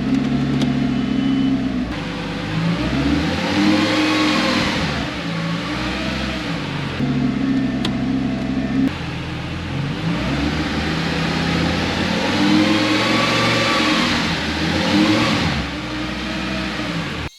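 Lamborghini Gallardo Superleggera's V10 engine, very loud through a straight-through exhaust with its bypass valves unplugged. It holds steady revs, then revs up and back down twice, once briefly and once for longer, as it is run through the gears to test the refitted manual gearbox.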